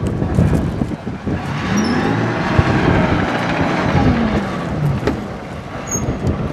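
FV434 armoured tracked vehicle on the move, its Rolls-Royce K60 two-stroke multi-fuel engine rising in pitch and then falling back over a few seconds, with clatter and crunch from its tracks on gravel.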